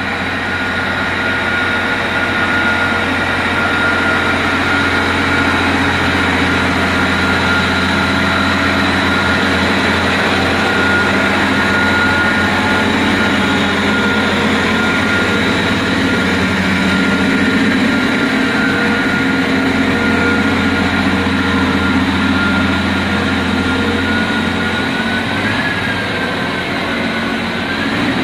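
Komatsu HD785 haul truck's V12 diesel engine running steadily at close range: a low drone with a steady high whine over it. The whine rises briefly near the end as the truck moves off down the ramp.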